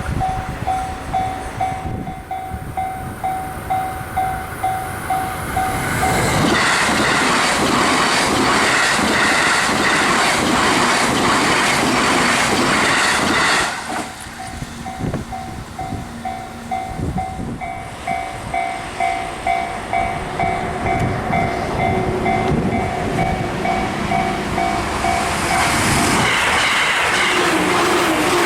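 Japanese railway level-crossing alarm bell ringing in a steady fast ding-ding rhythm, then drowned out as a Joban Line train rushes through the crossing at high speed with loud wheel and rail noise. This happens twice: the first pass cuts off abruptly about halfway, the bell rings again, and a second train starts to pass near the end.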